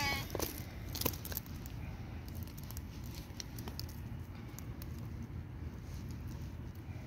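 A steady low outdoor rumble with scattered light ticks and taps, and the tail of a black cat's meow right at the start.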